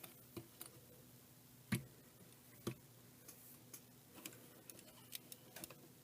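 Plastic Transformers action figures being handled and set down on a surface: scattered light clicks and taps, with two louder knocks about two and three seconds in.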